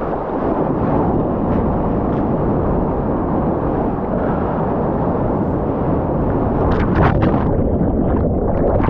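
Loud, steady rush of water and wind on the microphone of a board-mounted action camera as a soft-top surfboard moves through whitewater. About seven seconds in, the camera goes under the water: a burst of crackling bubbles, and the rush turns duller.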